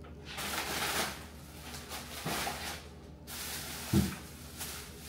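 Grocery bags rustling as they are handled on a kitchen counter, with a single thump about four seconds in.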